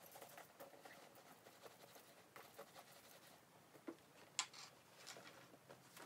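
Faint rubbing and scuffing of a round applicator pad working conditioner into a Florentine leather tote, in short uneven strokes, with a sharp click about four seconds in.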